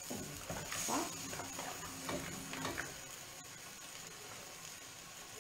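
Pasta with mussels and cannellini beans sizzling gently in a frying pan while it reduces to a creamy sauce, with a few light knocks of a utensil in the first three seconds.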